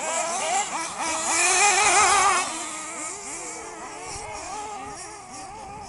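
Several nitro-powered 1/8-scale off-road RC buggies with small glow engines revving up and down as they race, their pitches overlapping; the loudest passes close by about one to two seconds in.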